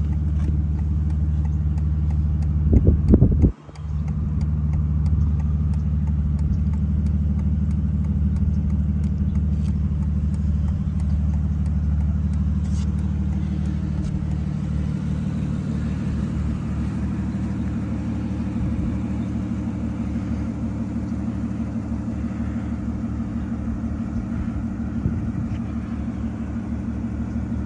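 The Aston Martin Rapide S's V12 engine idling steadily, a low, even rumble. About three seconds in there is a brief louder burst and the sound cuts out for a moment before the idle resumes.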